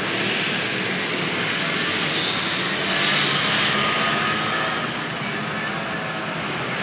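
Motor boat under way: its engine running steadily under a constant rush of water and wind noise.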